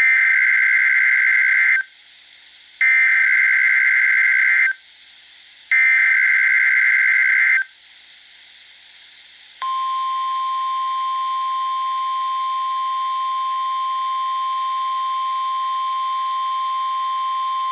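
NOAA Weather Radio emergency alert: the SAME digital header sent three times as loud, identical screeching data bursts a second apart, then after a short pause the steady single-pitched warning alarm tone starts about ten seconds in and holds. The alert heralds a National Weather Service Tornado Watch.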